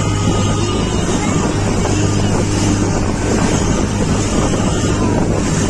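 Small motorboat under way: its engine running with a steady low hum, with wind buffeting the microphone and water rushing past the hull.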